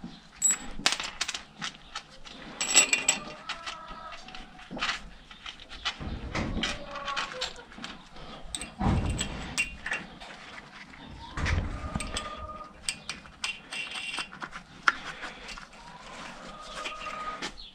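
Metal clinks and clanks of hand tools and steel pins against the hitch frame while a screw-type log-splitter cone is fitted to a tractor's three-point linkage, with two heavier knocks about halfway through.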